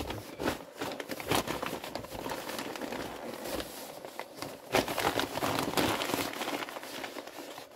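Wallpaper used as wrapping paper being handled and wound around a bundle: continuous rustling and crinkling, with sharper crackles now and then.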